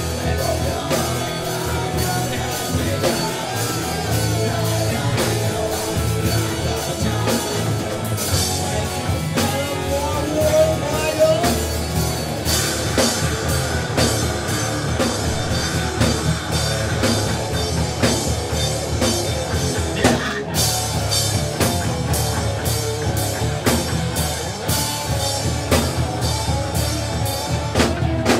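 Metal band playing live: distorted electric guitars and bass over a drum kit, with cymbal and drum hits in a steady driving rhythm. The whole band cuts out for a split second about two-thirds of the way through, then comes back in.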